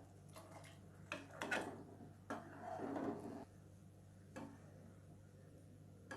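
A few faint clinks and scrapes of a utensil against a cooking pot, with a short soft stretch of stirring noise about two to three seconds in.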